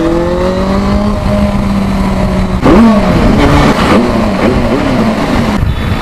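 Benelli 600i's inline-four engine under way, its pitch rising as it revs through a gear, then holding steady. About two and a half seconds in it gets louder and the pitch wavers up and down with the throttle.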